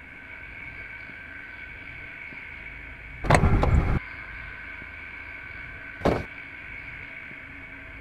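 Car door noises inside a stopped sedan: a loud clatter lasting most of a second about three seconds in, and a short knock about six seconds in, over a steady low hum.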